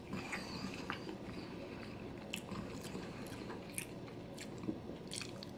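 A person chewing a bite of sushi roll close to the microphone, with short wet mouth clicks and smacks at irregular intervals.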